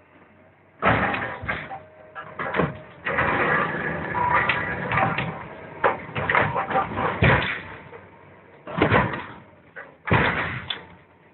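Steel hull of an old barge crumpling, scraping and banging as a crawler excavator's demolition shear presses it down. The loud metal crashing and grinding starts about a second in, comes in stop-and-start stretches, and ends with two short crunches near the end.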